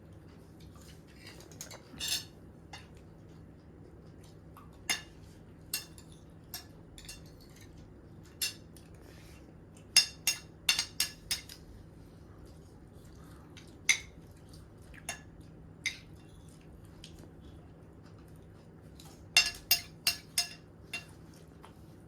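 Dishes and metal utensils clinking and clattering in short, scattered knocks, with quick runs of clinks about ten seconds in and again near the end, over a faint low hum.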